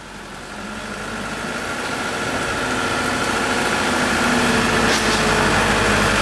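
Truck engine running steadily and growing gradually louder, driving the truck-mounted crane that holds a mini rice combine harvester in its slings.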